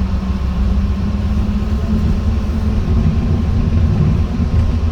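Steady low rumble with a wavering hum inside a Yongin EverLine light-rail car running between stations, the noise of the wheels and drive under way.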